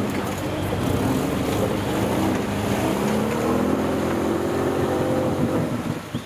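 Off-road 4x4's engine running under load, its revs rising and falling, dropping off briefly near the end.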